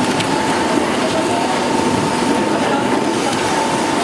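Rotary die-cutting machine for corrugated board running, its rollers turning with a steady mechanical clatter and a constant whine as a corrugated sheet feeds through.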